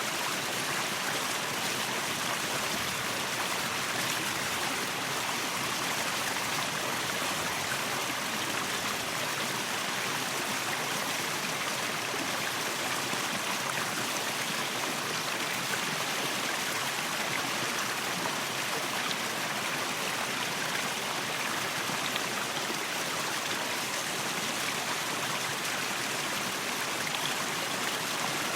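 Waterfall: water falling and rushing steadily in an even, unbroken hiss.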